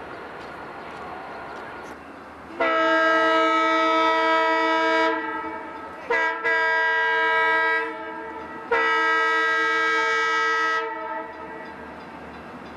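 Diesel passenger locomotive's air horn, Union Pacific E9 951 approaching. It sounds a long blast, a brief toot, then two more long blasts over the steady noise of the moving train.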